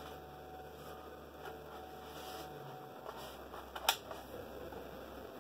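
Light handling noises of a foam RC airplane fuselage being turned in the hands, with one sharp click a little before four seconds in, over a faint steady hum.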